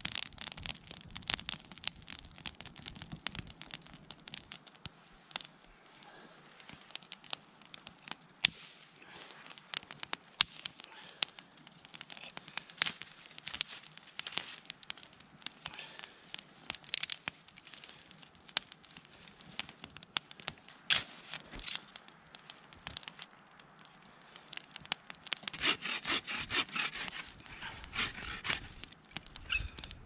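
Twig campfire crackling, with frequent sharp, irregular pops. Near the end, a few seconds of louder scraping and snapping.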